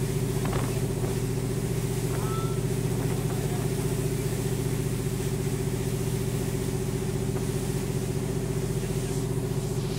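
Passenger canal boat's engine running steadily at an even pitch, heard from inside the boat's covered cabin.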